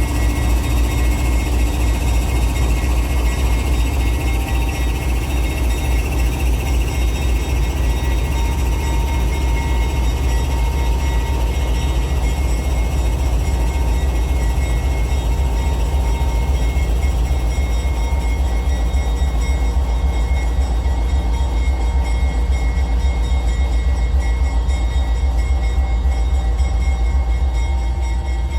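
Long freight train of flatcars rolling past, making a loud, steady low rumble of wheels and cars on the rails.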